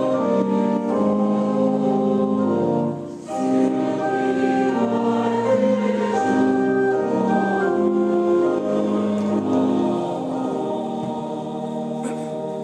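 Choir singing a slow sacred piece in long held chords, with a short breath break about three seconds in; the singing eases off near the end.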